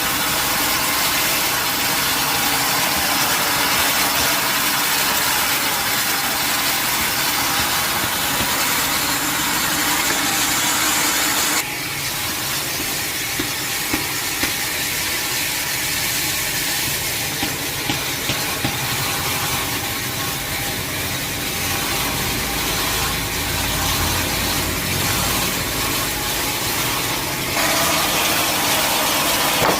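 Sawmill log saw and its drive running steadily. The sound changes suddenly about twelve seconds in and again near the end, with a few short knocks in between.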